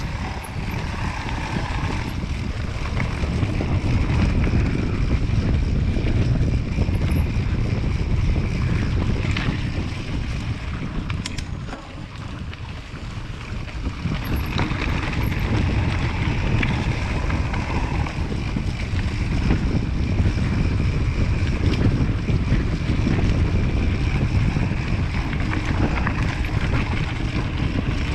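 Wind rushing over the camera microphone together with the rumble and rattle of a hardtail mountain bike riding fast down a rough singletrack; the noise eases briefly near the middle, then picks up again.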